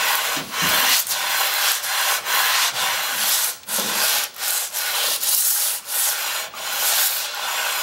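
Cast-iron sole of an old Record trying plane rubbed back and forth over coarse wet/dry sandpaper wetted with cutting fluid, lapping the sole flat. It is a rhythmic scraping, about two strokes a second.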